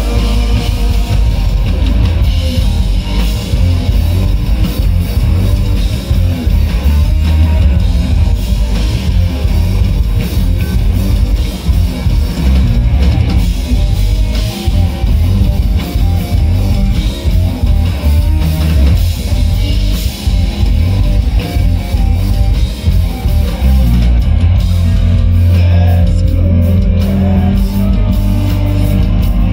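Live rock band playing loudly: electric guitars, bass guitar and drum kit, with a heavy, booming low end.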